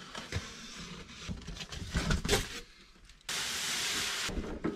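Cardboard shipping box being cut open and unpacked: a knife working through the packing tape, cardboard scraping and knocking, then plastic wrapping rustling. A little past three seconds in comes a steady hiss lasting about a second.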